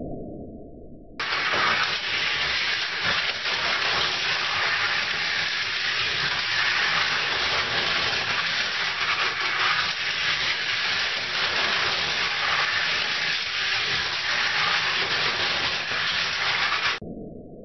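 Slot cars running around a plastic track: a steady whirring hiss of small electric motors and tyres. It starts abruptly about a second in and cuts off just before the end.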